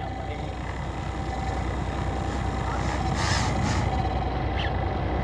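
Fishing boat's engine running steadily: a constant low hum and rushing noise, with a faint steady tone held over it.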